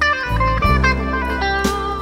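Instrumental break of a song: a lead guitar plays a phrase of notes stepping downward over a steady bass line, with a drum hit near the end.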